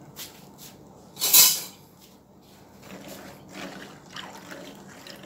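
Metal spoon stirring soaked black beans in a bowl of water, with irregular sloshing strokes through the second half. A brief loud burst of noise about a second in.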